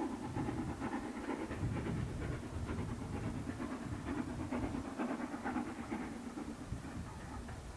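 Steam locomotive working hard, its exhaust beats coming in quick rhythmic chuffs that fade slowly as the train draws away.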